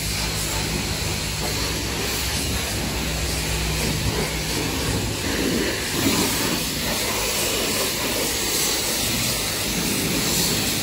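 Steady hiss of a coin-op car-wash pressure washer's water jet spraying a car's body and wheel, with a low steady hum through the first half.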